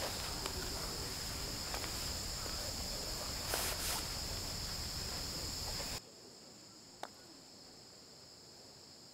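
Steady high-pitched insect chorus over outdoor background noise. About six seconds in, the whole sound drops sharply in level, leaving the insects fainter, and there is a single faint tap a second later.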